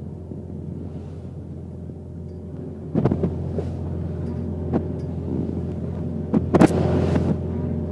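Steady hum of a small trawler's diesel engine running under way. From about three seconds in, a few sharp knocks with splashy tails, the loudest about six and a half seconds in, as the hull meets short, steep chop.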